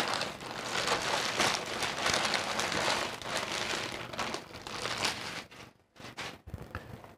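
Thin clear plastic bag crinkling and rustling as hands grip and handle it. It thins out to a few separate crackles near the end.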